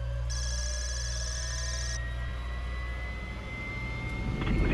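Jet engine whine slowly rising in pitch over a steady low rumble. A high electronic chattering sound effect plays over it for the first two seconds or so, and near the end the sound turns louder and busier.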